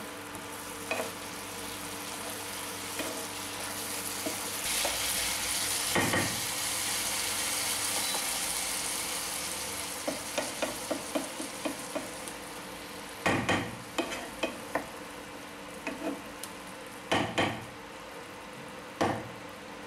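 Drumstick and tomato curry sizzling in a nonstick wok while it is stirred with a spatula. In the second half, a run of sharp knocks and taps of the spatula against the pan, some in quick clusters, are the loudest sounds.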